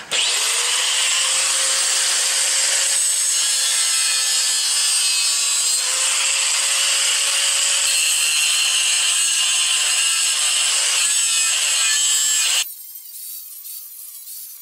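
Angle grinder grinding into a cast iron transmission casing, a loud steady grind with a faint steady whine under it, that cuts off suddenly near the end. The grinding throws sparks for a spark test, which shows the casing to be what appears to be gray cast iron.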